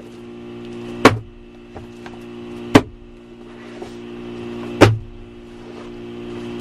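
A steady engine hum with a sharp knock about every two seconds, four times, and a faint rushing that swells between the knocks.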